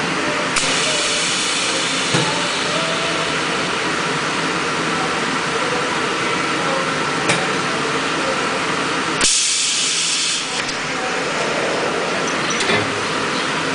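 High-frequency plastic welding machine running through a press cycle: a steady machine hiss and hum with a few light clicks, then a loud burst of compressed-air hiss about nine seconds in as the pneumatic press releases.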